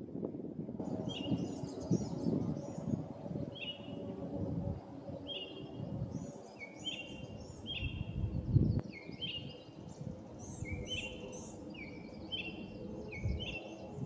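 A small songbird calling, a string of short, sharp chirping notes repeated every half second to a second, beginning about a second in. A steady low outdoor rumble runs under it, with one louder thump about halfway through.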